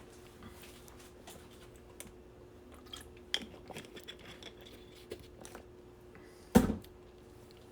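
Small clicks, taps and rustles of objects being handled on a tabletop, with one dull thud about two-thirds of the way in as something is set down. A faint steady hum runs underneath.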